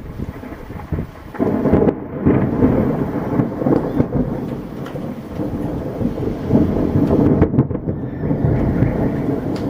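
Thunder rumbling over rain, swelling sharply about a second in and staying loud through the rest.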